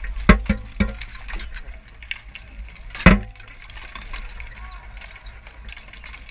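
Sharp knocks and clanks close by, a quick cluster in the first second and a single louder one about three seconds in, over a steady haze of distant melee battle noise with shouting.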